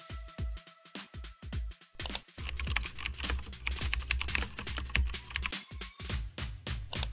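Computer keyboard typing sound effect, rapid key clicks starting about two seconds in, over electronic background music with a steady thumping beat.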